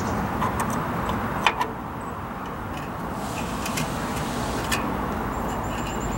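A few light metallic clicks and taps of drum brake hardware being handled, the sharpest pair about a second and a half in, over a steady background hum.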